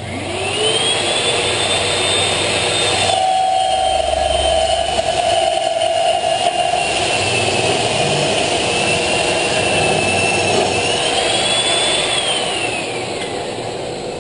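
Electric power tool motor starting and spinning up. About three seconds in its pitch drops as it bites into brick masonry and labours under load. Near the end it rises briefly as the load comes off, then winds down with a falling whine.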